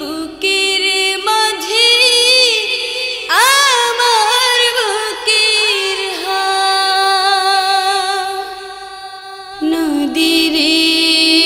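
Background song in Bengali: a solo singing voice holding long, sliding, ornamented notes, with a drop in level for about a second just before the end.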